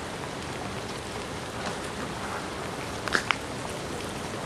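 Heavy rain falling steadily, an even hiss, with two brief sharp ticks about three seconds in.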